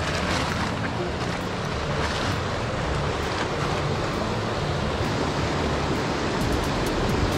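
Steady rush of river water pouring over a small spillway and through the rapids below it, with some wind buffeting the microphone.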